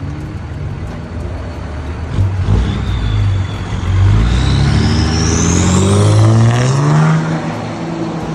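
Dodge Cummins turbo-diesel inline-six accelerating hard, its engine note climbing in pitch for several seconds with a high whistle rising alongside, then easing off near the end.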